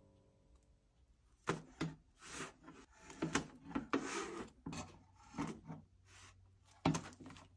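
A knife scraping around the cups of a metal muffin tin to loosen baked muffins, in irregular short strokes starting about a second and a half in, with soft knocks as the muffins are lifted out and set on a parchment-lined tray. A sharper knock comes near the end.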